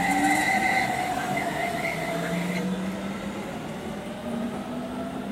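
Hamburg S-Bahn class 474 electric train pulling out of the station, its traction motors whining in several tones that slowly slide in pitch over a rumble of wheels, fading as it draws away.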